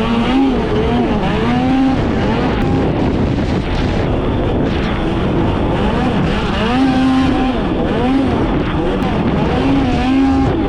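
Arctic Cat Catalyst snowmobile engine under a rider's throttle, revving up and dropping back over and over as it runs along the trail, with steady track and wind noise beneath.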